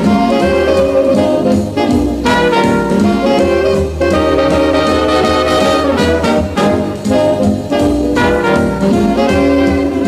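Background jazz music with brass instruments.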